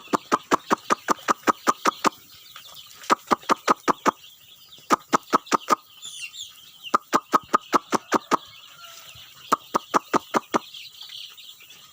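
A person calling young joper chicks with quick clicking, clucking calls. The calls come in several bursts of about six clicks a second, and the chicks peep faintly underneath.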